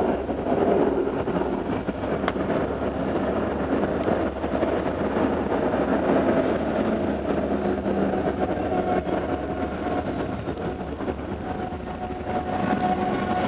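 Tram running, heard from inside the car: a steady rolling and running noise, with a faint steady whine coming in about two-thirds of the way through.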